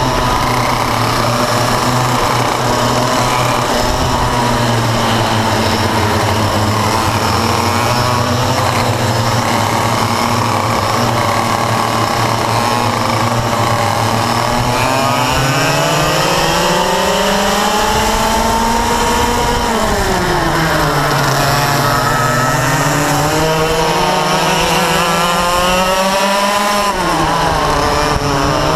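Yamaha KT100 two-stroke kart engines racing under load, heard from onboard a kart running nose-to-tail with others. The revs hold steady for about fourteen seconds, then climb, drop back, and climb again before dropping sharply near the end.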